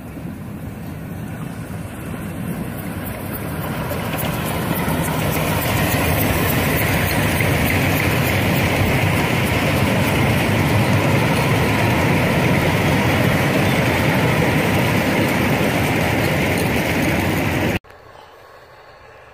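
Miniature park railway passenger train running past close by. It grows louder over the first several seconds, holds steady, then cuts off suddenly near the end.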